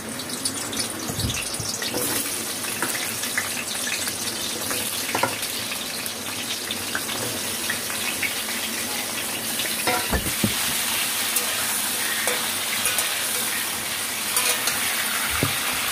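Pieces of pointed gourd sizzling and spitting as they fry in hot mustard oil in an aluminium kadai. Occasional knocks come as more pieces go into the pan and a metal spatula turns them.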